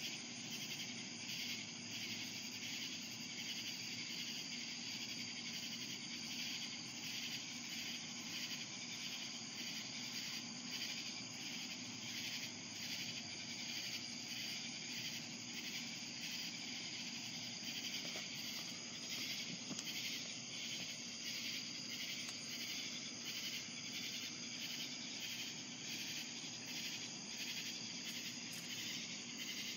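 Crickets chirping in a steady, evenly pulsing chorus, with a faint low hum underneath.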